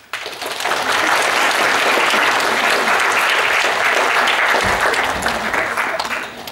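Audience applauding: clapping that starts at once, builds within half a second, holds steady, and dies away near the end.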